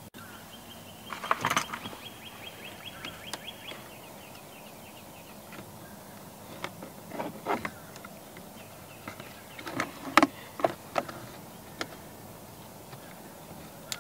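Scattered clicks and knocks of hands working at plastic dashboard trim, with a brief high rattling trill about a second in.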